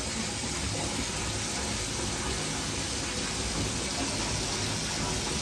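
Warm water running steadily from a tap, with a hand held under the stream.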